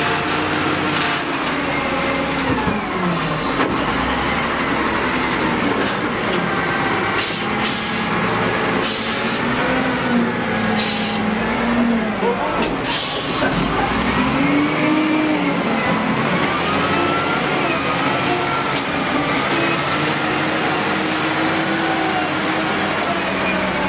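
Caterpillar wheel loader's diesel engine running and revving, its pitch rising and falling as it works, with repeated sharp clanks and hisses.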